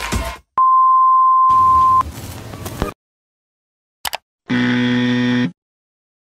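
Promo sound effects: a steady, high beep lasting about a second and a half, a short burst of noise, a brief click about four seconds in, then a low, harsh buzzer tone lasting about a second.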